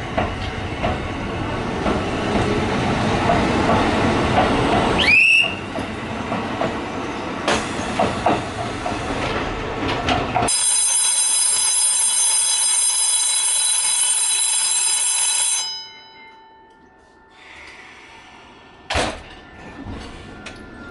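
Train noise with a brief rising wheel or brake squeal about five seconds in, then the station's electric departure bell rings loudly and steadily for about five seconds, like a fire-alarm bell, and cuts off abruptly. A single sharp knock follows near the end.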